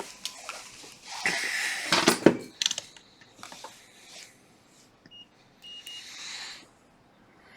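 Clicks and short hissing noises from handling tools on the circuit board, then two short, high multimeter continuity beeps about five and six seconds in, showing the probed trace is connected.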